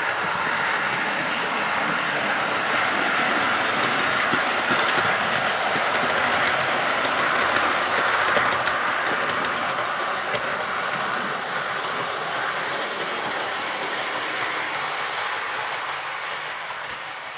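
00 gauge Hornby Railroad LNER P2 model locomotive hauling four teak coaches past, its wheels clicking over the rail joints with a steady running rumble. The sound is loudest in the middle and fades as the train moves away near the end.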